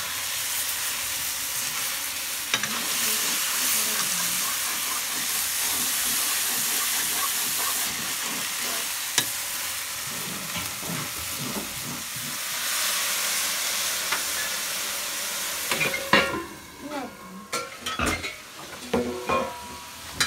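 Food frying in hot oil in a pan, a steady sizzle. About sixteen seconds in the sizzle dies down and a few sharp knocks and clatters follow.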